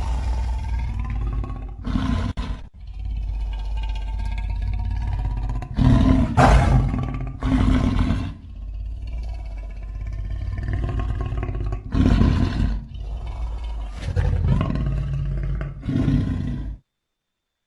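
Layered monster roar sound effect built from film-monster, lion and grizzly bear roars: a run of long growls over a deep rumble, with louder roars about six, eight, twelve and sixteen seconds in. It cuts off suddenly near the end.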